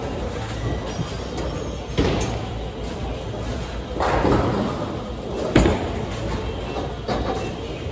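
Bowling alley ball and pin noise: two sharp thuds, about two seconds and five and a half seconds in, and a swell of clatter around four seconds in.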